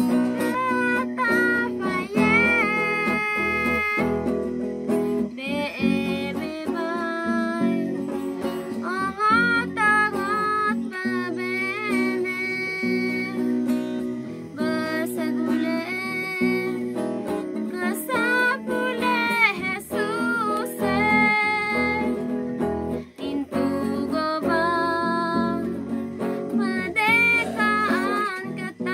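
Acoustic guitar strumming chords as accompaniment to a voice singing a Christian song about Jesus.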